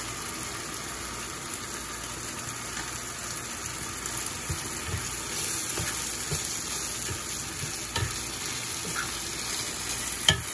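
A stir-fry of shredded chicken, bamboo shoots and peppers sizzling in a nonstick frying pan while it is stirred with a wooden spatula, as a thin starch slurry thickens the sauce. Light scrapes and taps of the spatula come in from about four seconds in, and a sharp knock comes near the end.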